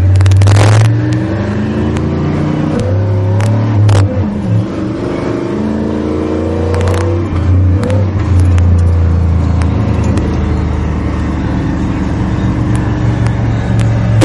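1991 Chevrolet half-ton pickup's engine pulling hard under acceleration. The revs climb, drop back about three seconds in, climb again and drop once more about seven seconds in, as at gear changes, then hold steady at cruise.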